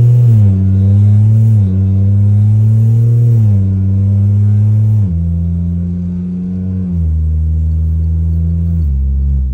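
BMW engine heard from inside the cabin as the car accelerates through the gears. The engine note climbs steadily and drops sharply at each upshift, about every two seconds. After about five seconds it settles into a lower, steadier note, stepping down twice more near the end.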